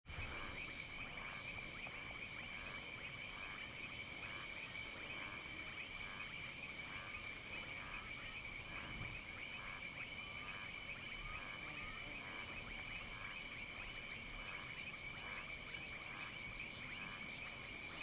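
A steady chorus of insects, several high-pitched trills holding without a break. A fainter call repeats about twice a second beneath it.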